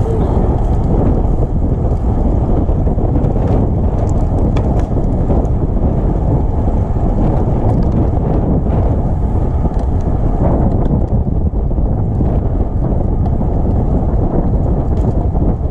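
Heavy wind buffeting the microphone: a loud, steady low rumble with no engine tone in it, and a few faint ticks.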